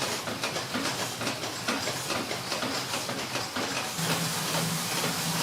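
Factory machinery running: a dense, fast clatter of clicks over a steady hiss. About four seconds in, a steady low hum joins.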